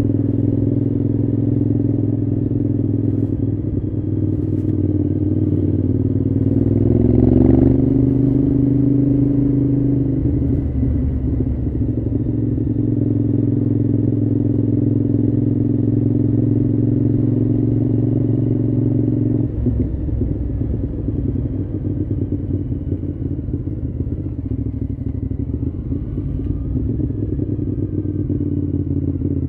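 Cagiva V-Raptor 1000's Suzuki-derived 90° V-twin engine running steadily. About seven seconds in the revs rise briefly and settle again, and the pitch drops a little around twenty seconds in.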